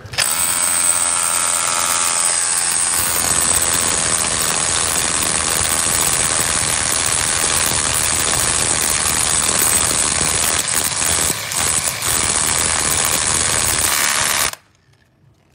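Hilti TE 6-A36 cordless SDS rotary hammer hammer-drilling a masonry bit into a concrete curb, a loud, steady hammering rattle. It cuts off suddenly near the end.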